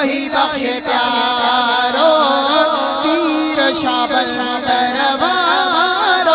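A Sindhi devotional manqabat being sung: voices holding a drawn-out melodic line with wavering, gliding pitch and no clear words.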